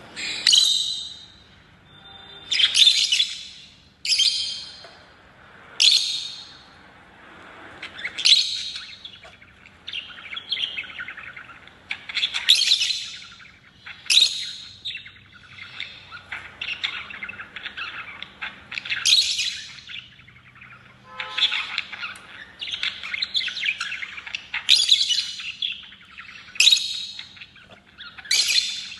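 Lovebirds chirping: high-pitched calls about every one to two seconds, with quieter chatter in between.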